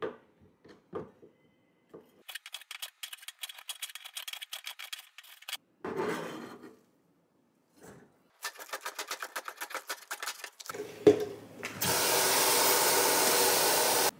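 A kitchen knife chops a Japanese leek (negi) on a cutting board in two runs of quick, even strokes, with a few single knocks at the start. About eleven seconds in there is a thump. Then a kitchen tap runs water steadily into a stainless colander and bowl.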